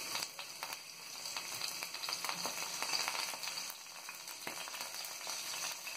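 Finely chopped garlic and a spoonful of soy sauce sizzling in a little hot oil in a non-stick frying pan, stirred with a spatula.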